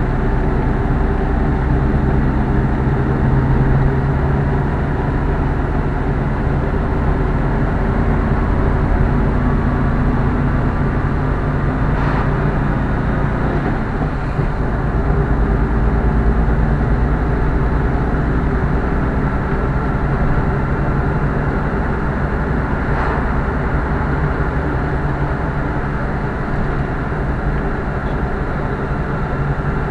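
A car driving: a steady drone of engine and tyre noise, the engine note rising and falling a little as the speed changes.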